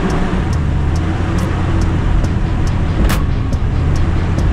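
Mitsubishi Montero driving slowly on an off-road trail: a steady low engine hum, a light ticking about twice a second, and a sharp clack about three seconds in.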